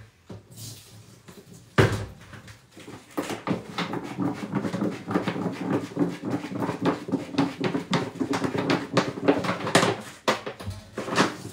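Washing up at a kitchen sink: plastic bowls and dishes knocking and clattering as they are scrubbed and rinsed, starting about two seconds in.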